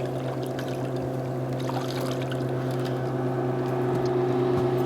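A steady low mechanical hum aboard a boat, with a few faint light clicks and knocks.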